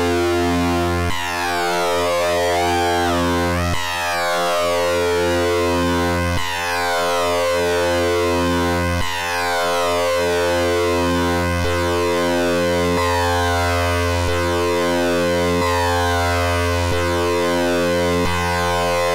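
Eurorack modular synthesizer drone from Trident oscillators wave-spliced through a Recombination Engine, with wave-folding distortion added. A low, steady pitched tone rich in harmonics, its high partials sweeping downward repeatedly and its timbre jumping about every two and a half seconds.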